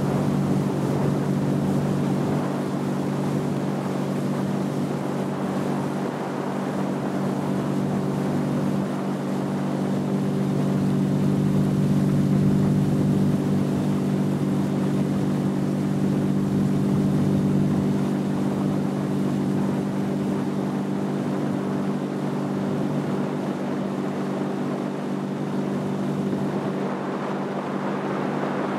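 Motorboat engine running steadily at cruising speed, a constant drone with water and wind hiss over it, swelling a little louder midway.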